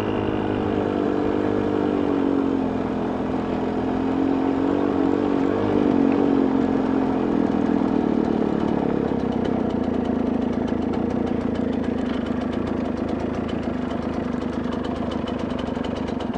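KTM dirt bike's engine running at low speed on a gravel road, its pitch dropping a little a few seconds in, then holding steady. The engine sound stops suddenly at the very end.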